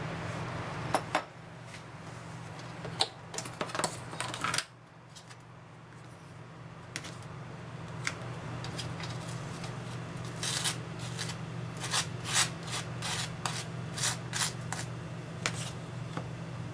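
A table knife scraping spread across crisp, dark toast in quick repeated strokes, busiest in the second half, after a few clicks and knocks in the first seconds. A steady low hum runs underneath.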